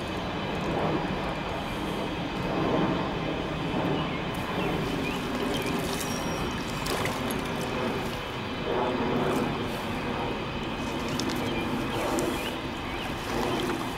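Steady background rumble of distant engines, swelling and fading slightly a few times.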